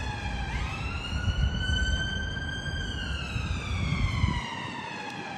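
An emergency vehicle's siren wailing, its pitch dipping, rising for about two seconds, then falling slowly for about two and a half seconds, over a low rumbling background.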